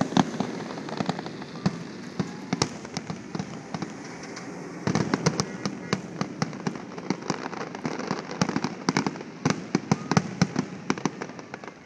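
Fireworks display going off: a dense run of sharp crackling pops and bangs, coming thicker and faster from about halfway through.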